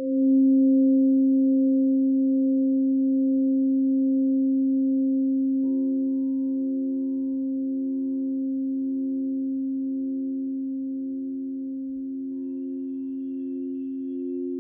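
Crystal singing bowls ringing together in steady, pure tones. About six seconds in, another bowl is struck and joins with a slow, regular pulsing wobble.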